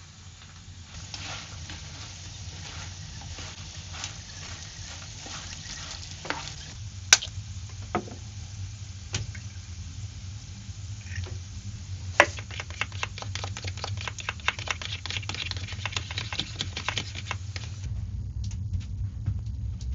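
Cooking on a stove: food sizzling and being stirred, with scattered clicks and two sharp knocks, and dense crackling from about twelve seconds in.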